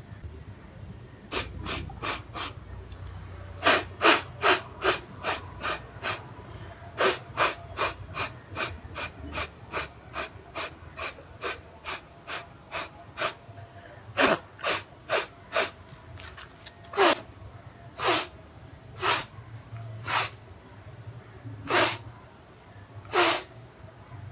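Kapalbhati breathing: sharp, forceful exhalations through the nose in quick runs of about three a second, slowing near the end to single blasts about a second apart.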